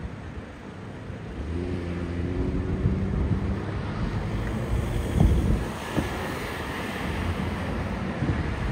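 Wind buffeting the microphone over a street's low rumble, with a motor vehicle's engine running steadily for a couple of seconds early on, a sharp knock about five seconds in, then a rising hiss like passing traffic.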